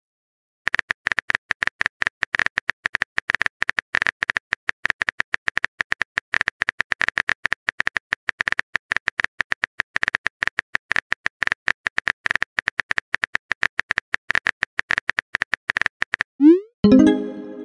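Rapid keyboard-typing click sound effects from a texting-story app, a steady stream of short clicks as a message is typed out letter by letter. Near the end the clicks stop and a short rising swoop and a ringing tone follow, the app's message-sent sound.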